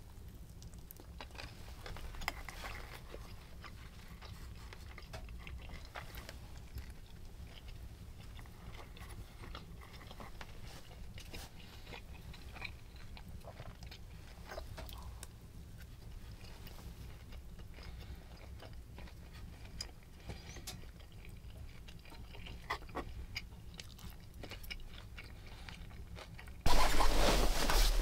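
A person chewing and biting food, with small clicks and scrapes of a fork against a foil-wrapped dish, over a low steady hum. Near the end a sudden, much louder noise lasts about a second.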